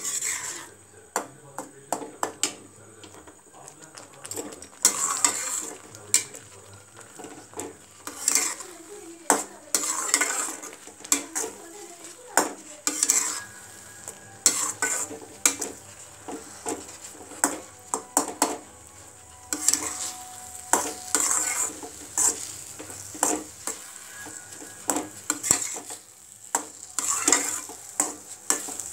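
Metal ladle scraping and clinking against a stainless-steel kadai as thick rava upma is stirred and cooks down, with irregular strokes and sharp clicks and a light sizzle from the pan.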